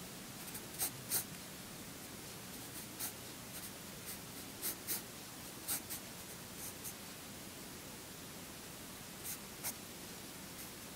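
Pencil scratching on drawing paper in short, light sketching strokes, a dozen or so quick scratches with a pause of about two seconds near the end.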